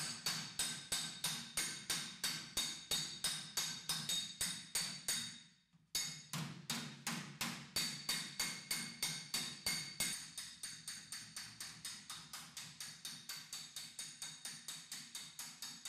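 Hand hammer planishing a welded-in steel repair section on a car body panel: rapid, even blows, about five a second, each with a metallic ring. The hammering fades out briefly about five and a half seconds in, resumes, and turns quieter after about ten seconds.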